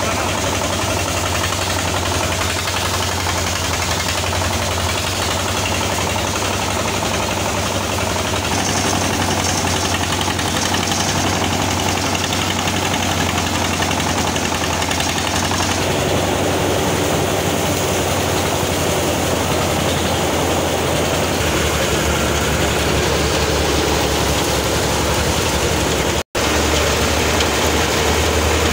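Rice threshing machine running under load, its drum driven by a small single-cylinder diesel engine, a steady loud mechanical din as rice straw is fed in and threshed. The sound cuts out for an instant near the end.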